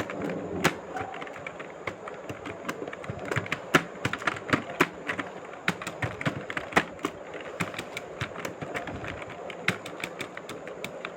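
Computer keyboard keys clicking in a fast, uneven stream of touch-typing during a timed typing test.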